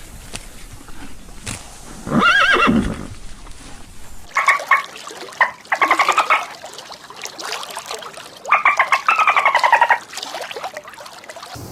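Animal calls: one long rising-and-falling call about two seconds in, then two runs of quick, quavering calls, the second one sliding downward in pitch.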